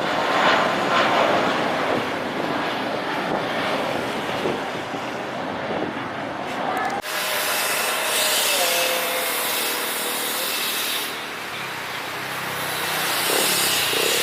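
Jet engines of an Airbus A321 airliner running, a loud, steady rushing noise with hiss. The sound changes abruptly about halfway through, after which it is hissier.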